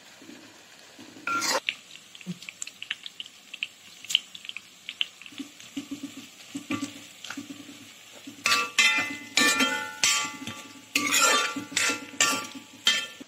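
A metal spoon stirring and scraping sliced onions, curry leaves and dried red chillies frying in oil in a metal wok, each stroke ringing off the pan: once about a second and a half in, then a run of strokes from about eight seconds in to near the end. Between the strokes the frying sizzles and crackles lightly.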